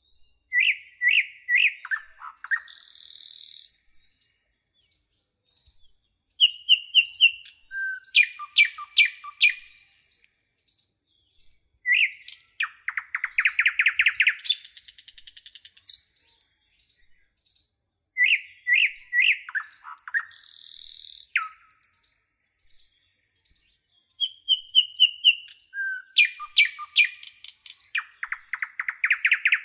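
Bird song in repeated phrases: quick runs of clear whistled notes and rapid trills, with gaps of a second or two between phrases.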